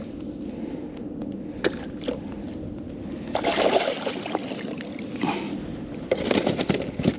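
Water splashing and sloshing beside a kayak as a fluke is netted and brought aboard, with a few sharp knocks and clicks of gear against the hull. The splashing comes in louder spells, about a third of the way in and again near the end.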